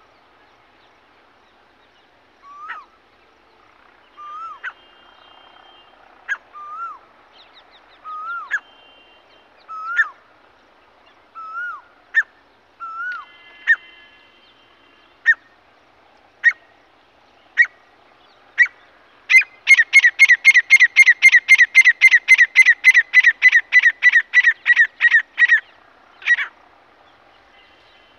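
Male grey francolin calling. It gives a string of short rising-and-falling whistled notes, each with a sharp click, every second or two. Then come a few single sharp notes, then a fast, loud run of about twenty notes lasting some six seconds, and one last note.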